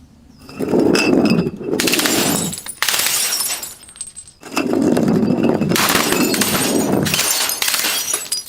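Glass crunching and breaking as it is crushed, in three long loud stretches, the last the longest, with faint ringing of glass pieces.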